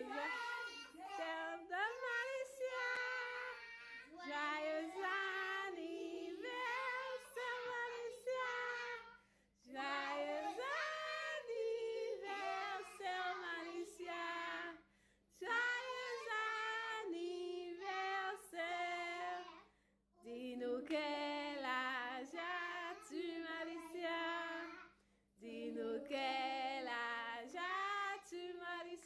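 Children and a woman singing a birthday song together in phrases of a few seconds, with short pauses for breath between lines.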